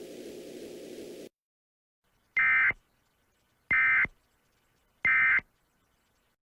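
Emergency Alert System end-of-message signal: three short, identical bursts of digital data tones, a little over a second apart, marking the end of the alert.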